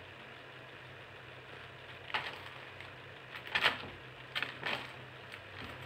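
A few faint clicks and knocks, about two, three and four and a half seconds in, over a low steady electrical hum.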